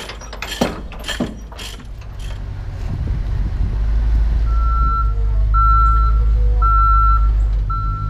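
Bucket truck's engine running and growing louder, with its reverse alarm beeping four times, about once a second, in the second half. A few sharp knocks in the first second or so.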